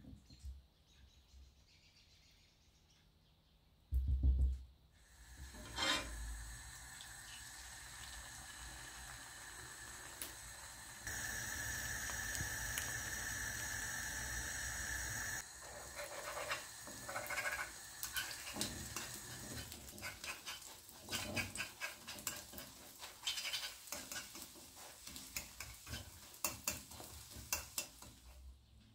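Beaten egg frying in oil in a nonstick pan: a steady sizzle, loudest for a few seconds in the middle, then a fork repeatedly scraping and tapping the pan as the egg is stirred. A single loud thump comes about four seconds in.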